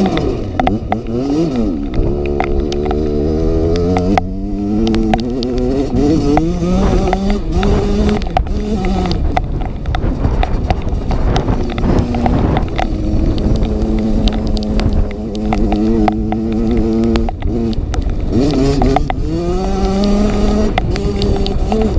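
Kawasaki KX85's two-stroke single-cylinder engine being ridden hard, its pitch climbing and dropping again and again as the throttle opens and closes, with scattered knocks from the bike.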